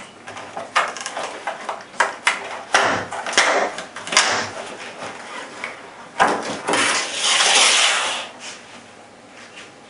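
Stiff clear plastic packaging crackling and crinkling as it is opened and a rifle stock is pulled out of it. There are many sharp clicks in the first half and a louder stretch of rustling from about six to eight seconds in, then it goes quiet.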